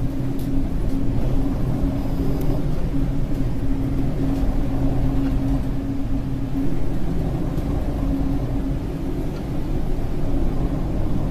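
Steady engine drone: a constant low hum over a deep rumble that stays even throughout.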